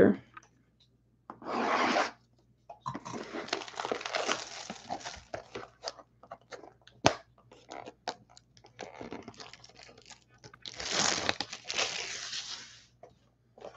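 Plastic shrink wrap being torn and peeled off a cardboard trading-card hobby box, crinkling, in three spells. Scattered clicks and taps come between them, and the longest, loudest tearing comes near the end.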